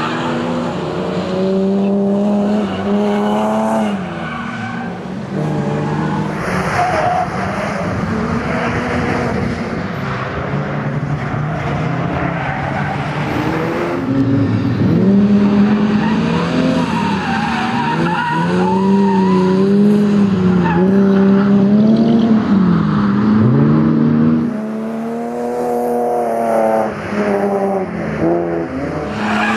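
Ford Focus RS Mk1's turbocharged four-cylinder engine revving hard and lifting off again and again as the car is thrown through a tight coned course, with its tyres skidding and squealing.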